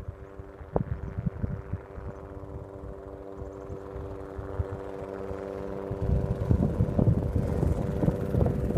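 Low-flying helicopter droning steadily, growing louder as it comes closer, with wind buffeting the microphone from about six seconds in.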